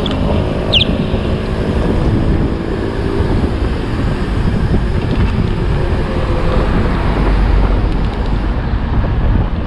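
Wind buffeting the microphone of a camera on a moving bicycle, a steady loud rumble, with two short falling squeaks near the start.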